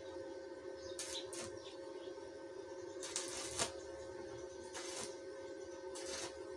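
Stick welder tack-welding steel tubing: about five short bursts of crackling arc, the longest lasting about half a second a little after three seconds in, over a steady hum.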